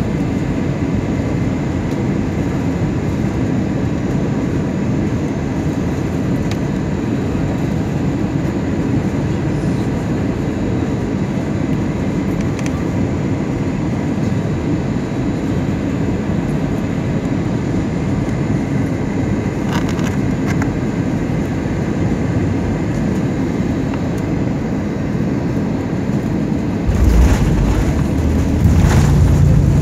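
Steady cabin noise of an airliner on its landing approach: engine and airflow rumble at an even level. About 27 seconds in, a sudden heavier low rumble with a few thumps marks the wheels touching down, and the rumble grows louder near the end as the aircraft rolls out on the runway.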